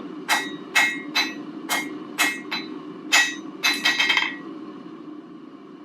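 Blacksmith's hammer striking a bar on the anvil to taper it: about nine ringing blows at an uneven pace, stopping a little over four seconds in. A steady low hum runs underneath.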